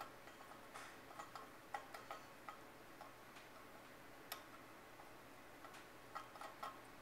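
Faint, irregular metallic clicks and ticks from a brass adjusting key being unscrewed by hand from a gas-cylinder regulator. The clicks come in a cluster in the first couple of seconds, once about four seconds in, and a few more near the end.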